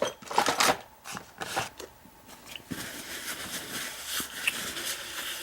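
Rummaging through small tools while hunting for a pair of tweezers: a few sharp clicks and clatters, then steady rustling with small ticks.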